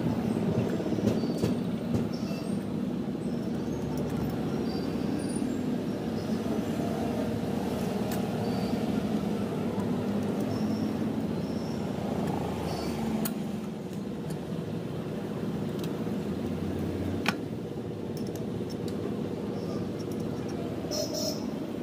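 A steady low rumble and hum with a few light metallic clicks and taps as a moped's cast cylinder barrel is worked by hand down over the piston and studs. One sharp click comes about 17 seconds in.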